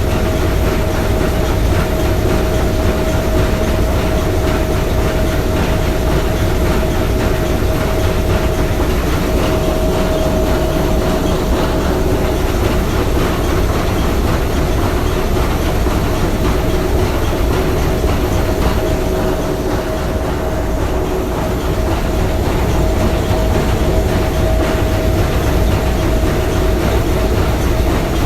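Three-cylinder triple-expansion marine steam engine running steadily, a dense fast rhythmic clatter of its moving parts with a steady tone held over it.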